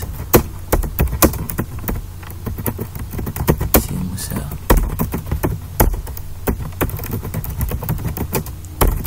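Computer keyboard keys clicking in quick, irregular runs as text is typed.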